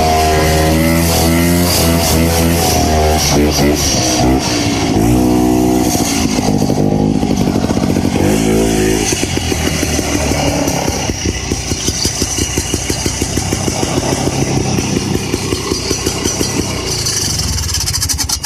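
Vintage Ski-Doo snowmobile's two-stroke engine running under way, its pitch rising and falling as the throttle changes. It settles into a more pulsing, uneven beat after about nine seconds.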